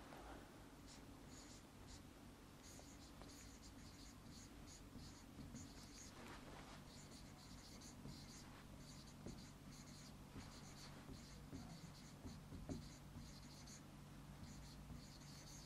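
A pen writing by hand on a board: faint, quick scratching strokes in short runs as letters are formed, over a low steady hum.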